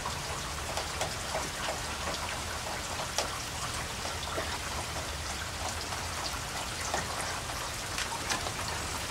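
Steady rain falling on wet paving and shrubs: an even hiss with many separate drop ticks, one a little louder about three seconds in.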